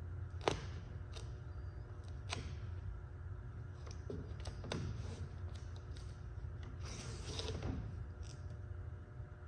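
Wood-pattern vinyl wrap film being handled while a diffuser is wrapped: a few sharp clicks, then a longer crinkling rustle near the end, over a steady low hum.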